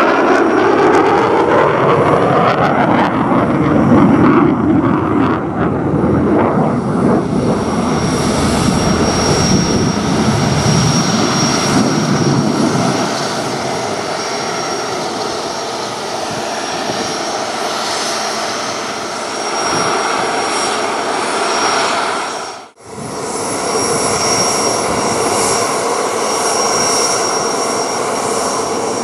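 F/A-18F Super Hornet's twin General Electric F414 jet engines: a jet passing with its noise falling in pitch, settling into a steady rumble with a high turbine whine. About three-quarters of the way through, the sound drops out for an instant, then the steady jet whine resumes.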